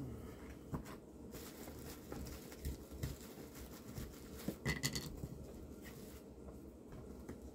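Gloved hands rubbing foil tape down onto a flexible foil-faced duct joint: faint crinkling and rustling with scattered small clicks, and a brief louder crackle about five seconds in.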